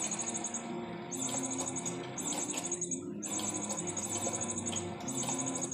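High-pitched chirping that comes in bursts of about a second with short gaps between them, over low, sustained background music from a television.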